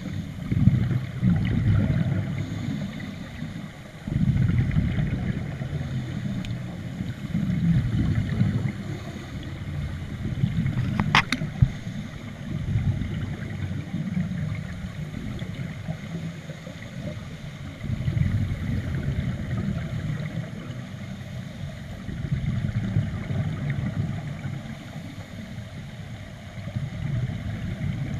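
Scuba divers' exhaled bubbles and regulator breathing, heard underwater through a camera housing: a low rushing gurgle that swells and fades every few seconds with each breath. A single sharp click with a short ring comes about eleven seconds in.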